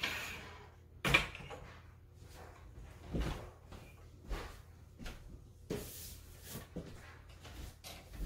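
Plastic building-toy rods and connectors being handled and pulled apart on a tabletop: a string of irregular clicks, knocks and rattles, the loudest about a second in.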